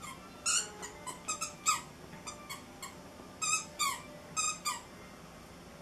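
Squeaker inside a plush dog toy squeaking again and again in short, high squeaks as a dog bites down on it repeatedly; the squeaks stop about five seconds in.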